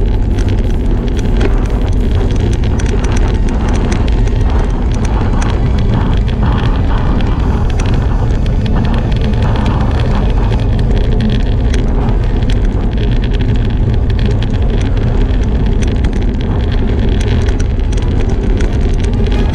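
Wind buffeting the microphone of a camera on a road bike riding at about 30 km/h, mixed with tyre and road noise: a loud steady rumble with many small crackles.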